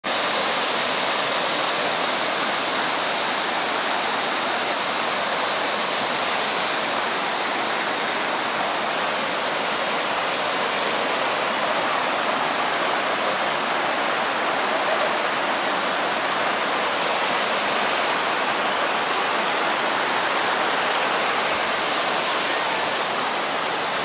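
Mountain stream rushing and splashing over boulders in a steady white-water roar. The high hiss is strongest for the first eight seconds or so, then eases slightly.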